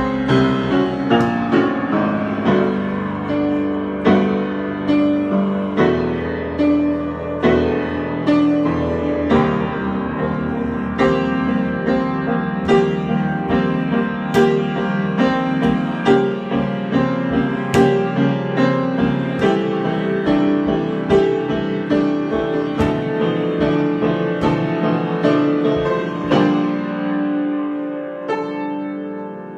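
Solo piano improvisation: a steady stream of struck notes over sustained lower chords, ending on a held chord that rings and fades near the end.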